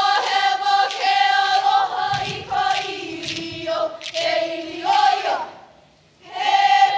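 A large group of voices chants in unison in a Hawaiian mele. The voices break off about five and a half seconds in and start again about a second later.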